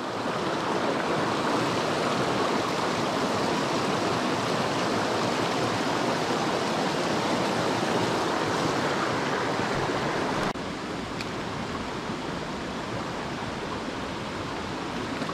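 Creek water rushing steadily. About ten and a half seconds in it drops abruptly to a quieter rush.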